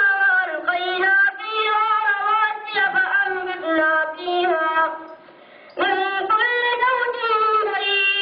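A high female voice singing solo, with long held, wavering notes. It breaks off for under a second about five seconds in, then carries on.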